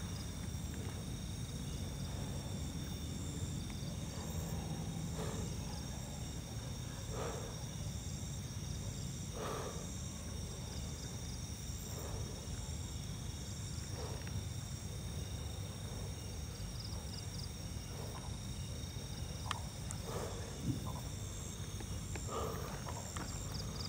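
Night insects chirping in a steady high chorus, one of them in an even, pulsing rhythm. Under it are soft footsteps on sandy ground every couple of seconds and a low steady rumble.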